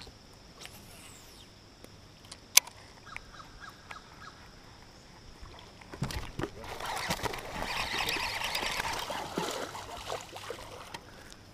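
A hooked bass splashing and thrashing at the water's surface beside the boat for about four seconds, starting about six seconds in. Earlier there is a single sharp click.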